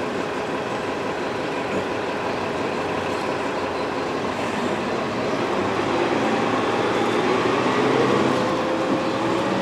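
Steady vehicle noise, a running engine with road rumble, growing slightly louder, with a faint tone slowly rising in pitch in the second half.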